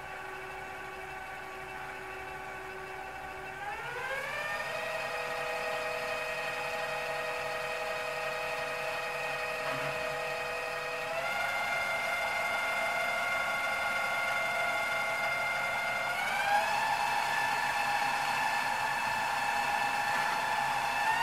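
Metex BF30 Vario mill-drill's brushless motor and geared head whining as the spindle runs clockwise in the high speed range. The pitch steps up three times and it grows louder as the spindle speed is raised from about 700 to about 1,650 rpm.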